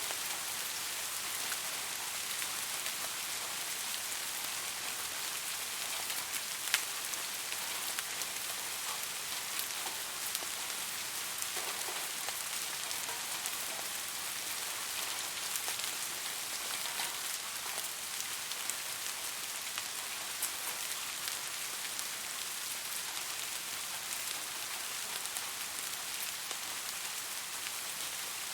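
Steady rain falling: an even hiss with many small drop ticks scattered through it, and one sharper drop about a quarter of the way in.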